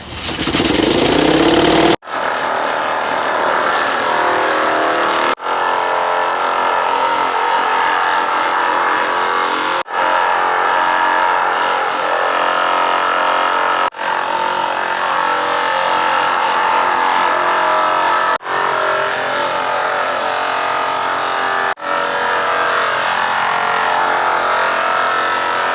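Pressure washer running and spraying, with a louder stretch and a rising sweep in the first two seconds. The sound drops out briefly about every four seconds.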